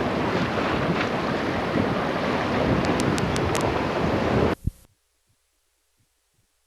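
Wind buffeting the microphone over water rushing along a sailboat's hull under way in a strong breeze. The noise is loud and steady, then cuts off suddenly about four and a half seconds in, leaving near silence.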